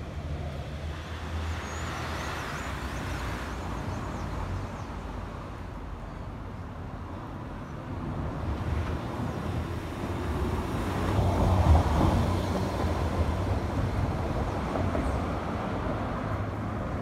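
Street traffic: a steady low rumble of passing vehicles, with one vehicle passing louder about twelve seconds in.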